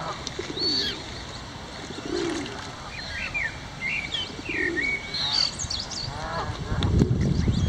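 Birds calling at the water: many short high peeps and chirps, with low cooing calls every couple of seconds. A low rumbling noise builds near the end.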